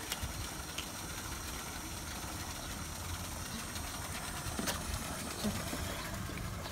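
Steady low hum and hiss of background noise, with a few faint clicks.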